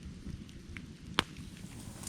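Burning firewood crackling over the low, steady flutter of the flames, with one sharp, loud pop a little past halfway.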